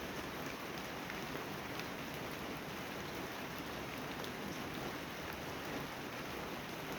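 Steady rain falling, with scattered single drops ticking sharply over the even hiss.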